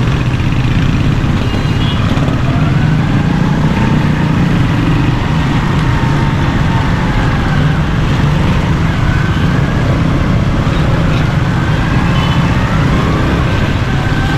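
Motorcycle engine running steadily at low speed in slow, congested city traffic, with the surrounding traffic noise around it.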